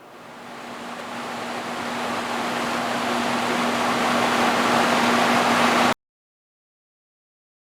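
A rush of noise with a steady low hum in it swells louder for about six seconds, then cuts off abruptly into dead silence.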